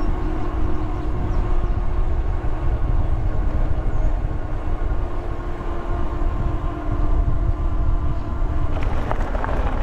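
Electric fat-tire folding bike riding along: a steady hum from the motor and tyres under heavy wind rumble on the microphone. Near the end the hum stops and there is a brief rattle.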